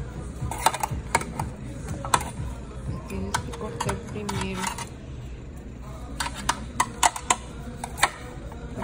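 Restaurant dining-room ambience: a steady murmur of background voices with scattered sharp clinks of cutlery and dishes.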